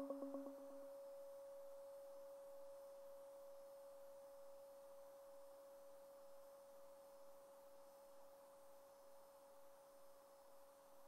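A faint, steady pure tone from the synthesizer rig, left sounding after the music cuts off, slowly fading. A few quick echoes and a lower tone die away in the first second.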